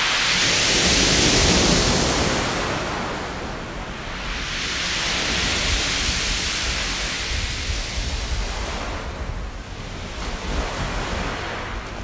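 Waves washing over a beach of smooth round pebbles (mongdol), the water rolling the stones as it surges and draws back. The surf comes in slow swells, loudest about a second in and again from about four seconds, easing off near the end.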